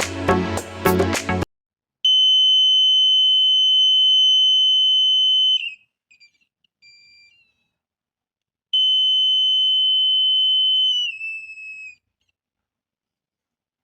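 Alarm buzzer sounding a steady high-pitched beep for about three and a half seconds, then a few short broken chirps, then a second steady beep of about three seconds whose pitch dips just before it cuts off. This is a laser-tripwire alarm going off when the laser beam on its light sensor is broken. Background music stops about a second and a half in.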